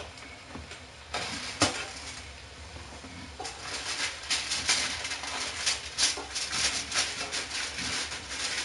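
A metal spatula clinking and scraping on a foil-lined metal baking sheet, with the foil crinkling, as toasted sandwiches are lifted off. There is one sharp clink about a second and a half in, then a busy run of crackling and scraping from about halfway through.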